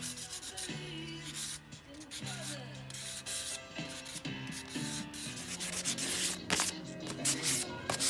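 Wet sandpaper rubbed back and forth over a folding knife's handle scale in quick, uneven strokes.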